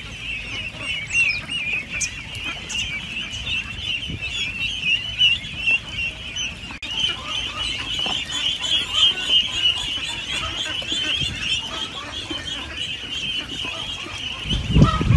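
A brooder full of newly hatched poultry chicks peeping all at once, many high-pitched chirps overlapping. A louder low thudding noise comes in near the end.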